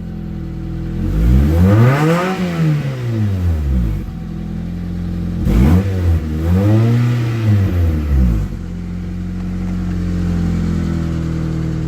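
1996 Honda Accord engine revved twice from idle through a newly fitted cat-back exhaust with a 3-inch pipe, each rev climbing and falling back over about three seconds, then settling to a steady idle.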